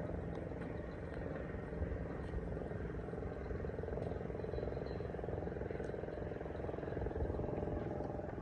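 Steady low engine rumble of road traffic or machinery, with a continuous hum and a few faint clicks.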